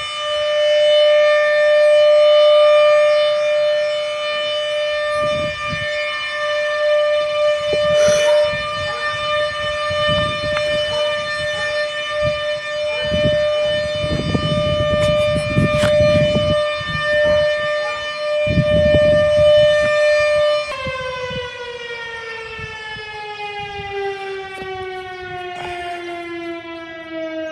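Federal Signal STH-10 outdoor warning siren sounding a loud, steady tone during a test. About two-thirds of the way through it begins winding down, its pitch falling steadily as the rotor slows.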